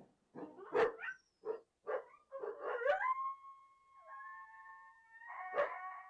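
Coyotes calling: a quick run of short barks and yips, then long steady howls from about three seconds in that overlap one another, broken by another bark about a second before the end.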